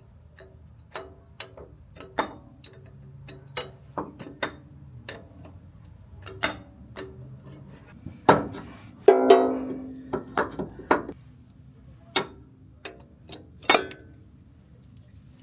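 Hand tools clinking and knocking against metal while a motor mount is being fitted, in irregular sharp taps. About nine seconds in there is a louder clang that rings briefly.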